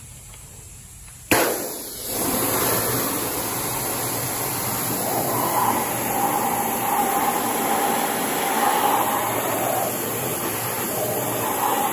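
Pressure washer spraying clean water onto a metal square-tube part, rinsing off its iron phosphate pretreatment. The spray starts abruptly about a second in and then runs as a steady rush of water.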